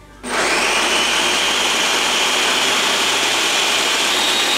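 Countertop blender starting about a quarter second in, quickly reaching full speed and then running steadily with a high motor whine, puréeing tomatoes, onion, garlic and chipotle peppers with water into a sauce.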